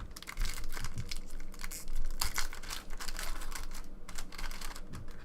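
Bowman Chrome baseball cards handled and flipped through one after another: a quick, irregular run of light clicks and rustles of stiff card stock.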